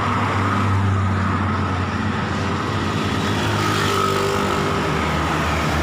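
Highway traffic passing close by: the steady hum of motor vehicle engines, with a motorcycle going past.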